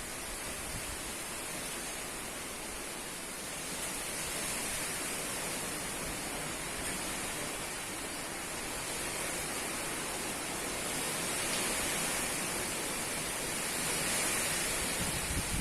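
Strong wind blowing: a steady hiss that swells a little in gusts, a bit louder around twelve seconds in and again near the end.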